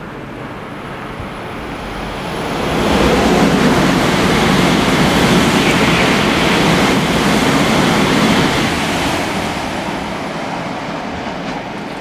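Nozomi Shinkansen bullet train passing through the station at speed without stopping. Its rushing noise builds over the first three seconds, holds loud for about six, then fades away.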